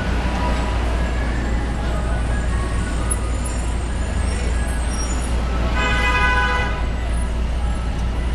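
City street traffic with a steady low rumble. About six seconds in, a vehicle horn sounds for about a second.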